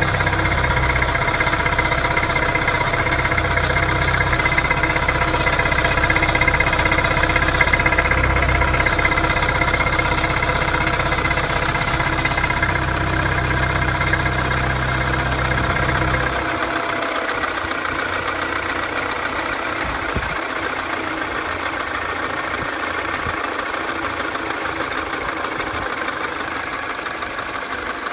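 2007 Mini Cooper's N12 1.6-litre four-cylinder engine idling after a cold start, with a ticking at idle that a new belt tensioner has not cured; the owner does not know its cause. A deep low rumble underneath stops abruptly about sixteen seconds in while the engine keeps running.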